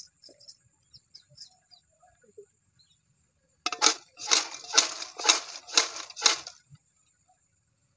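Fried potato chips tossed in an aluminium pot to coat them with chilli powder: a few faint crisp clicks at first, then, about halfway through, some six rattling swishes of the chips against the metal, about two a second.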